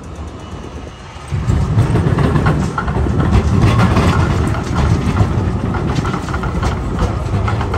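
Melbourne B2-class tram passing close by, its steel wheels rolling over the rails with a low rumble and many quick clicks. It comes in suddenly about a second in and stays loud.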